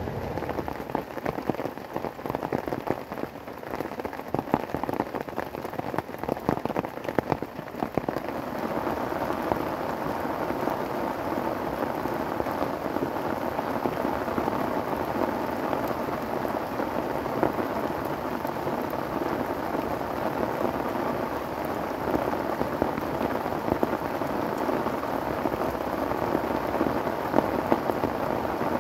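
Heavy rain falling. At first it is a patter of separate drops. From about eight seconds in it becomes a steady, dense downpour.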